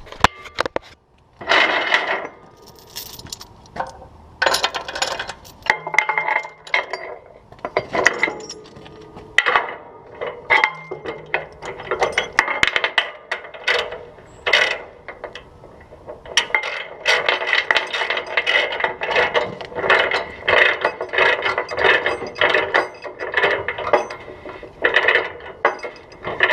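Ratchet binder being cranked tight on a tie-down chain: rapid clicking of the pawl in repeated runs of strokes.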